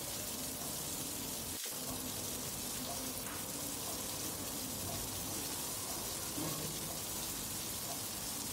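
Skewered prawns sizzling steadily in hot oil in a frying pan, with a momentary drop-out about a second and a half in.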